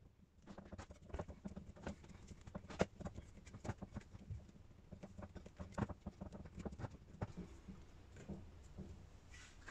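Rubber scooter grip being twisted and pushed onto a handlebar wet with hairspray, giving faint, irregular short clicks and rubbing sounds.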